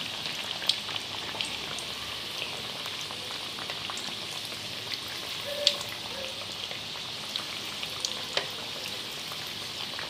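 Cornflake-coated chicken pieces deep-frying in hot oil in a kadhai: a steady sizzle with scattered sharp crackles and pops, the loudest a little past halfway.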